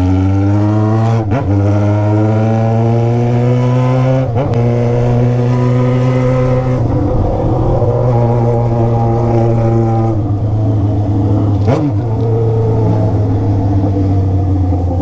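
Yamaha XJ6's 600 cc inline-four engine running through a straight-through 3-inch stainless exhaust with no silencer, under way on the road. The revs climb quickly in the first second, keep rising gently until about four seconds in, then hold at a steady cruise, easing slightly about ten seconds in.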